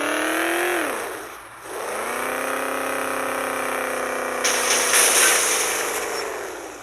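Electric motor of a powered cover whining, winding down about a second in, then starting again and running steadily with its pitch slowly sagging before it fades out; a short burst of hiss about four and a half seconds in. The cover is jammed and fails to open.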